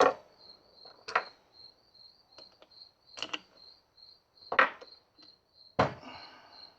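Several sharp clicks and knocks of metal parts being handled as a small piston is popped out of its bore on a BMW S54 engine part, over steady cricket chirping about three times a second.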